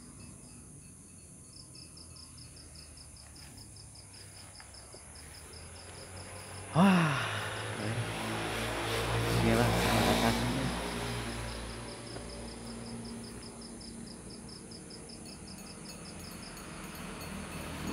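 Insects chirping in a steady, fast pulsing trill. About seven seconds in, a sudden loud noise starts, swells and fades away over several seconds.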